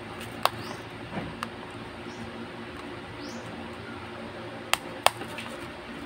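Sharp small clicks from a 2004 Isuzu Crosswind's seat belt retractor mechanism being probed with a thin wire pick. There is one click about half a second in, another near 1.5 s, and a close pair near the end, over a faint steady hum.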